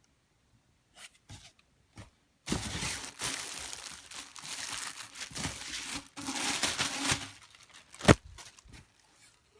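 Packaging crinkling and tearing for about five seconds as vacuum cleaner parts are pulled out and unwrapped, with a single sharp knock near the end.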